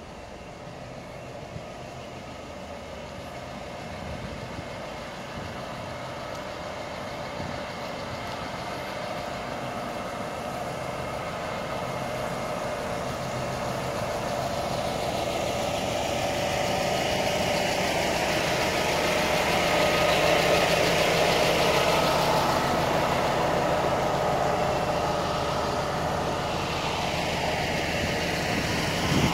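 Engine of a Scania K320IA articulated bus idling steadily, growing louder as the microphone approaches the rear of the bus.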